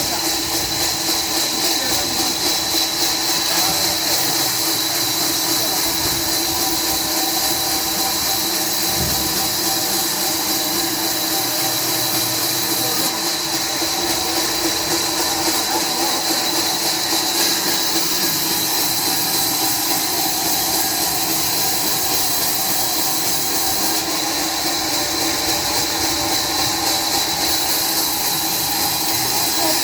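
Sawmill machinery running steadily: a continuous loud hiss with a high, unchanging whine and a few lower steady tones.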